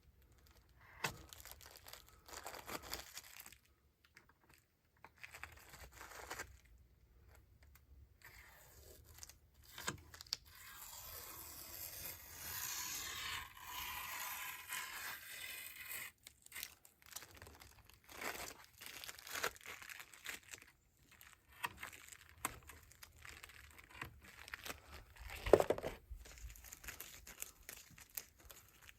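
Crinkling, tearing and scraping of fiberglass cloth being worked down onto a drum shell by gloved hands: scattered small crackles, a longer stretch of steady rustling about halfway through, and one sharp click near the end.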